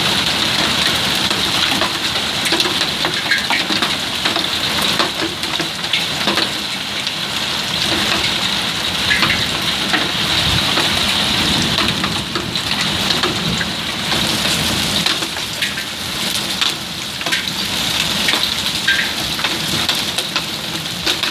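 Hailstorm: dense, loud rain and hail pelting down, with many sharp individual hits of hailstones through the steady wash.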